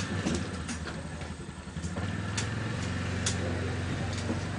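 A low, steady engine-like drone that grows stronger about two seconds in, with a few sharp cracks over it, twice clearly.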